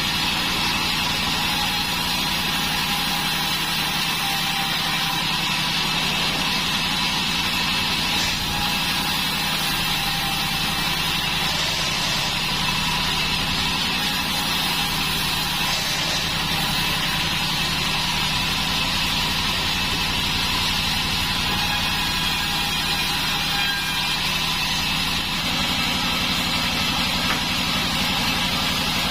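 Sawmill band saw running steadily, with a constant drone from its drive.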